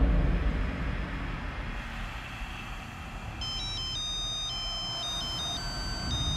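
Electronic phone tones: a quick run of high, stepped beeps that jump from pitch to pitch, starting about three seconds in, over low background music.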